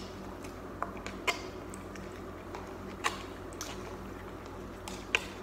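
Plastic spoons stirring sauce-coated instant noodles in paper cups: faint wet squelches and a handful of light, scattered clicks against the cup, over a faint steady hum.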